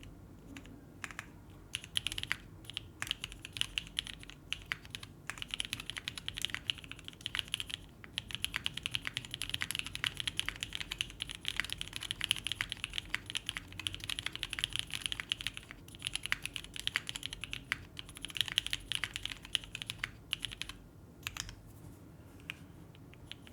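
Typing on a SINGA Kohaku custom mechanical keyboard with lubed Black Cherry Pie switches, GMK keycaps and an aluminium plate: dense runs of keystrokes broken by short pauses, thinning to a few strokes near the end.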